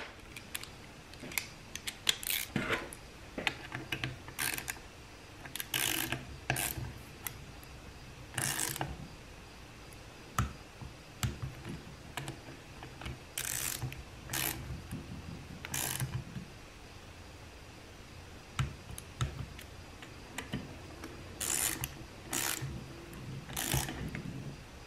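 Hand ratchet clicking in short, irregular bursts as the bolts on a 47RE transmission valve body are run down and torqued to 35 inch-pounds.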